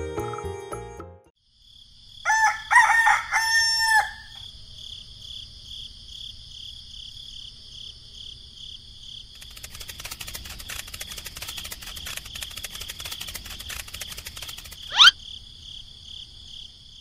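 A rooster crowing once, about two seconds in, followed by a steady high pulsing chirr like insects. Near the end a short, sharp rising sweep stands out as the loudest sound.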